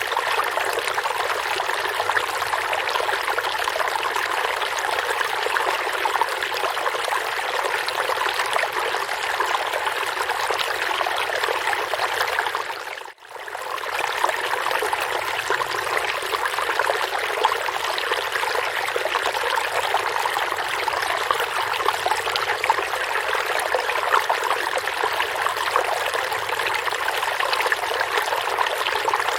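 Forest river flowing, a steady rushing and trickling of water over stones. About 13 seconds in it fades out almost completely for a moment and comes straight back.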